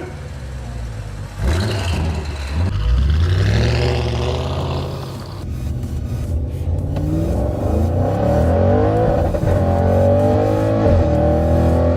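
Audi RS6 C7 Performance's twin-turbo V8, with a Milltek exhaust, accelerating hard: the engine note climbs, drops back about five seconds in, then climbs again. Sharp cracks come from the exhaust in the first few seconds.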